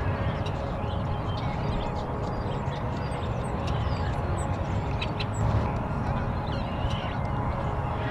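Outdoor ambience: birds chirping in short, scattered calls over a steady low rumble.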